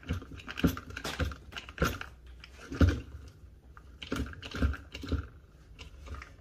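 YQK-120 hand hydraulic crimping tool being pumped by its handle, giving a click or knock with each stroke, roughly every half second, as the die closes on a 2/0 copper cable lug.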